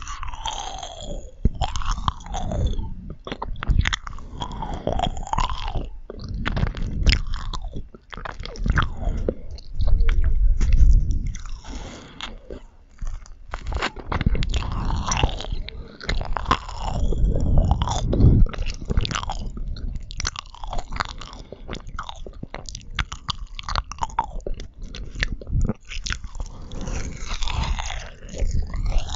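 Close-miked chewing and biting of marshmallows, with mouth sounds: irregular sticky clicks and smacks over soft, squashy chewing that swells louder now and then.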